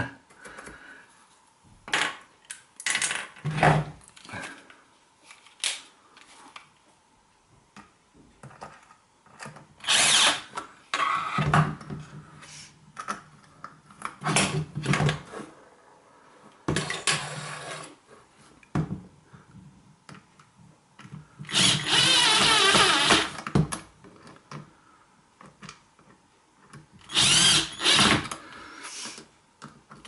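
Small cordless electric screwdriver running in about five short bursts, the longest about two seconds, driving screws back into a plastic electric-shower valve housing, with light handling clicks in between.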